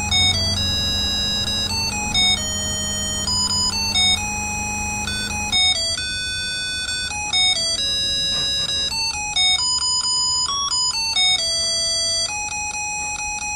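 Christmas light controller's music chip playing a simple electronic Christmas tune, one beeping note at a time.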